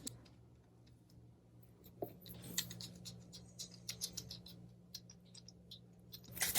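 Faint, scattered wet clicks and crackles of liquid ear cleaner squishing in a dog's ear canal as the base of the ear is massaged, the squishy sound that shows the cleaner has gone down into the canal.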